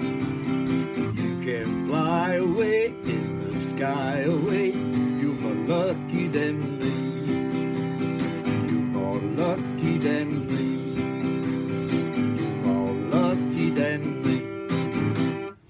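Music: strummed acoustic guitars with a wavering melody line above them, ending abruptly near the end.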